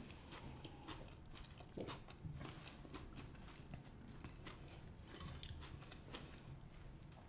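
People chewing mouthfuls of salad: faint crunching and wet mouth sounds with scattered small clicks.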